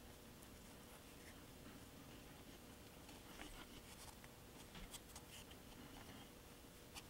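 Near silence, with faint scattered light scratches and small ticks from handwork on a plastic model building.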